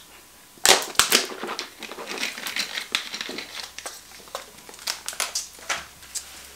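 A thin plastic drinks bottle crinkling and crackling as it is handled and squeezed, with a few sharp clicks about a second in.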